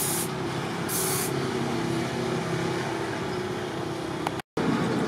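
Aerosol spray can hissing in two short bursts, one at the start and one about a second in, over a steady background hum.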